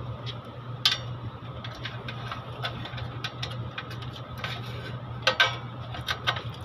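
Scattered small metallic clicks and taps from hands working inside a metal circuit-breaker enclosure, the loudest about a second in and a few near the end, over a steady low hum.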